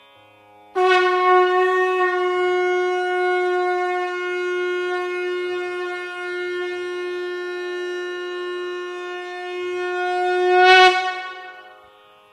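Conch shell (shankha) blown in one long steady note, starting abruptly under a second in and held for about ten seconds, swelling louder near the end before it fades. It is sounded during the lamp offering (arati) to the deity.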